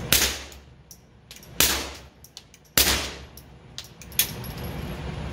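Three suppressed .22 LR pistol shots from a Taurus TX22 with a SilencerCo Sparrow suppressor, firing subsonic rounds, about a second and a half apart, each with a short ringing echo. A fainter sharp crack follows about four seconds in.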